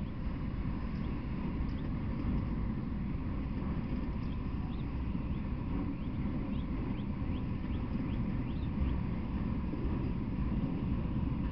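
Freight train of autorack cars rolling past: a steady low rumble of steel wheels on the rails, with a few faint, short high-pitched squeaks.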